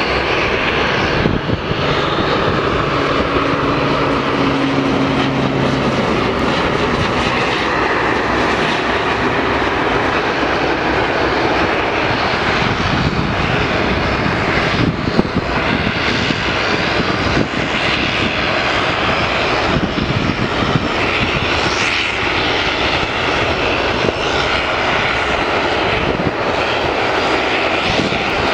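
Twin-turboprop military transport aircraft flying low with its landing gear down, its engines and propellers droning steadily as it passes. A low hum stands out for a few seconds, between about two and six seconds in.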